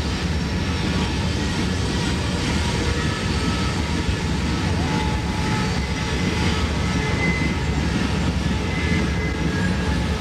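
Diesel train running by with a loud, steady rumble.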